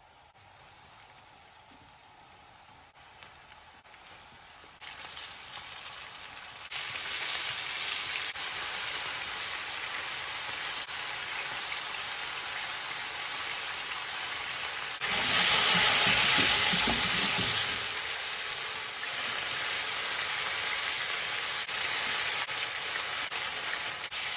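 Flour-and-cornstarch-coated chicken thigh pieces frying in hot oil: a dense, steady sizzle. It starts faint, grows louder in steps over the first several seconds, and is loudest about fifteen to eighteen seconds in.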